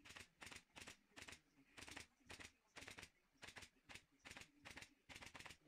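Pneumatic upholstery staple gun firing staples one after another, about two or three short, faint snaps a second, as it drives staples through lining fabric.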